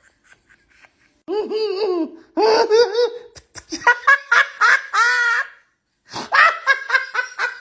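A man laughing hard in four high-pitched bouts, starting about a second in.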